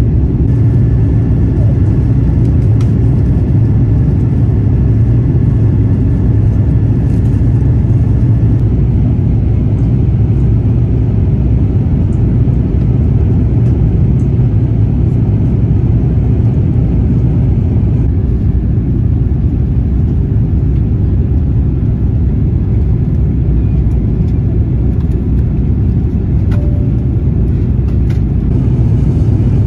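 Steady low rumble of an Airbus A350-1000 in flight, heard from inside the cabin: its Rolls-Royce Trent XWB engines and the airflow over the fuselage.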